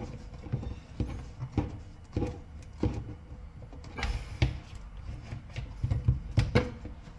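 Plastic clicks and knocks of a Wirquin Néo PVC sink trap being handled, screwed on at the top and twisted a quarter turn into its push-fit connection below, with a brief scraping rustle about four seconds in.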